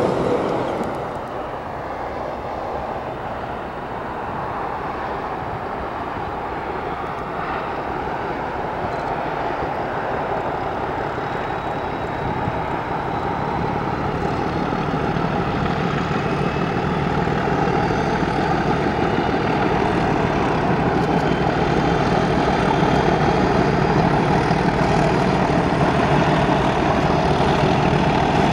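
English Electric heritage diesel locomotive engine running with a steady drone, growing louder as the train approaches.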